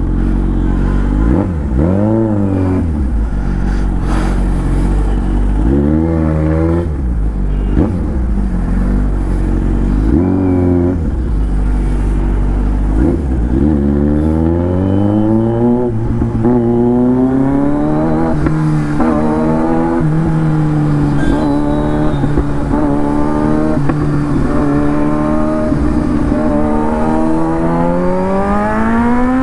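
Kawasaki Z900's inline-four engine through an aftermarket SC-Project exhaust. It rises and falls in revs a few times in slow traffic, then accelerates hard through the gears, the pitch climbing in repeated sweeps that drop sharply at each quickshifter upshift.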